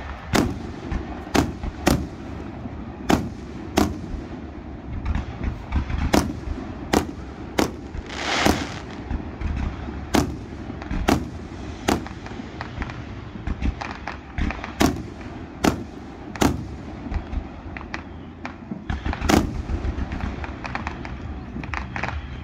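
Aerial fireworks shells bursting in a string of sharp bangs, about one or two a second, over a low rumble. There is a half-second hissing rush about eight seconds in, and a quicker run of smaller crackling pops near the end.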